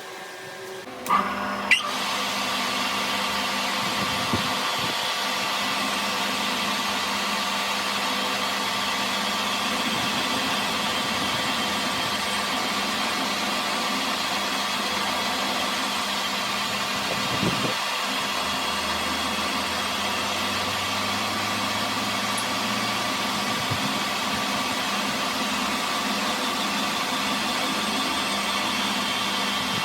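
A workshop machine's electric motor starts about a second in, rising briefly in pitch, then runs steadily with a steady hum.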